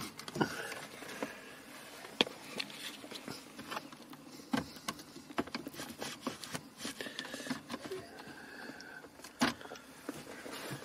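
Scattered small plastic clicks, taps and rubbing as a BMW E36's centre dashboard air vent housing is worked back into its opening in the dash, one corner first. Two sharper knocks stand out, about two seconds in and near the end.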